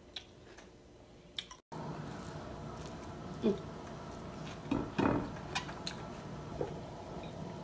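A person eating with her fingers: soft handling of rice and grilled chicken on a plate, then wet chewing and mouth sounds after a bite, a few short sounds rising out of a steady low background.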